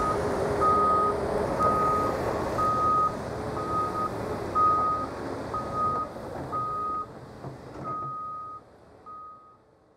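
Backup alarm on heavy earthmoving equipment beeping steadily about once a second over the rumble of running machinery, fading out near the end.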